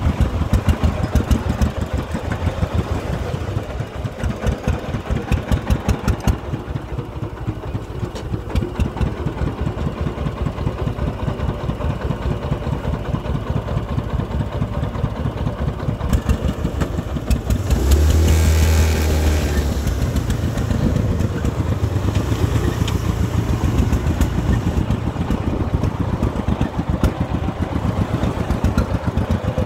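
Single-cylinder diesel engine of a công nông farm truck chugging with a fast, even thudding as it hauls a load of soil. About two-thirds of the way through it grows louder and deeper for a couple of seconds, then settles back to its steady chug.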